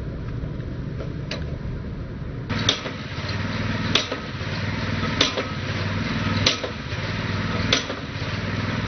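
Cable tool percussion rig driving well casing: the drive weight strikes the head on top of the casing about once every 1.3 seconds, seven blows, the first one faint. Under the blows the rig's single-cylinder Predator 212cc engine runs steadily and picks up about two and a half seconds in.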